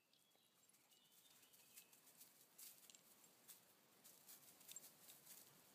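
Near silence, with faint scattered ticks and rustles and a few short, faint bird chirps in the first couple of seconds.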